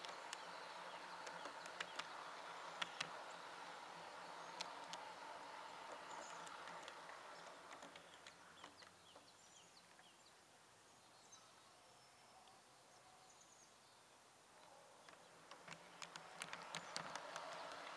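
Faint running hum of a G-scale model train's electric motor with sharp clicks of the wheels over rail joints; the sound dies away about eight seconds in as the train slows to a stop, then picks up again with more clicks a few seconds before the end. Birds chirp faintly in the background.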